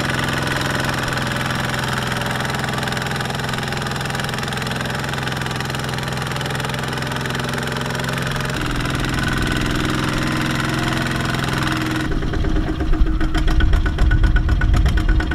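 Single-cylinder Kubota diesel engine of a two-wheel walking tractor running under load as it hauls a loaded trailer through mud. About twelve seconds in it becomes louder and deeper, with a rapid, even knocking beat.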